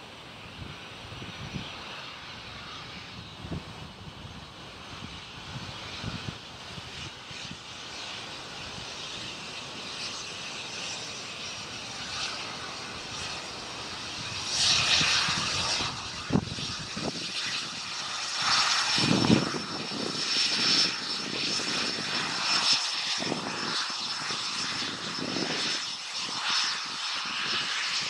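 Embraer Phenom 100 business jet's twin turbofan engines running as it rolls along the runway, growing louder as it nears. A steady high-pitched whine comes in about halfway through.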